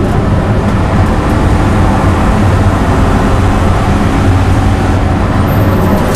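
BMW E36 engine pulling hard at high revs in fifth gear, heard from inside the cabin over loud road and wind noise; the revs fall away near the end as the driver lifts off.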